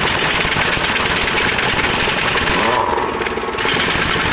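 Pneumatic impact wrench hammering rapidly on a truck's wheel nuts to loosen them, in two long runs with a short pause a little before three seconds in.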